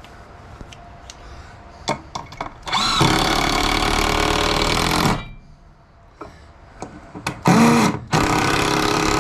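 Cordless drill driving screws into wood: a couple of light knocks, then two runs of about two seconds each, the motor's pitch sweeping up as it starts, with a brief short spin between them.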